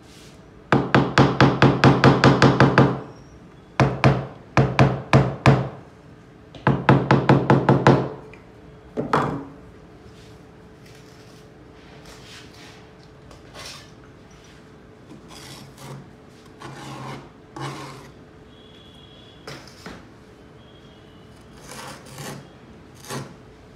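Rapid knocking on a freshly laid ceramic tile, about seven knocks a second, in three runs over the first eight seconds as the tile is bedded into its mortar. Later come softer, scattered scrapes of a steel trowel cutting away squeezed-out mortar along the tile's edge.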